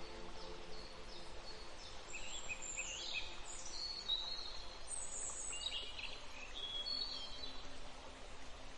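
Nature ambience: small birds chirping and trilling in short, high calls over a steady rushing background. Faint held music tones fade out in the first second.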